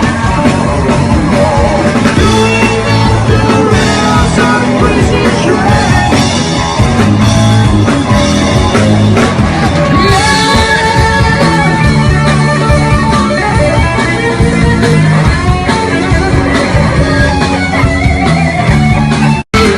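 Loud live rock music led by an electric guitar played through an Egnater Rebel 30 tube amplifier head, with a band behind it. The sound cuts out for an instant near the end.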